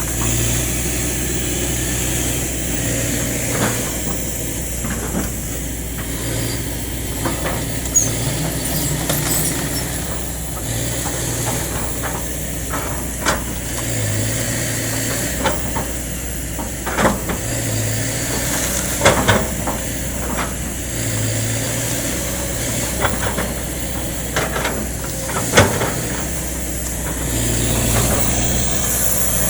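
Kobelco excavator's diesel engine running steadily, its note lifting in short spells every couple of seconds as it works, with scattered sharp cracks and knocks.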